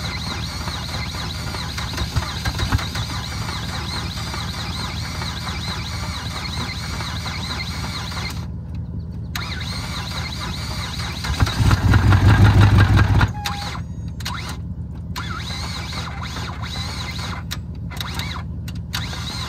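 Ford Fusion's starter cranking the engine for under two seconds, about halfway through, without it catching; the car turns out to be out of fuel. Steady background noise otherwise.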